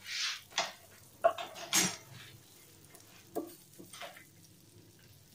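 A few short rustles and knocks, the handling of the paper that a paratha is being wrapped in, over the faint sizzle of an egg omelette frying in oil in a pan.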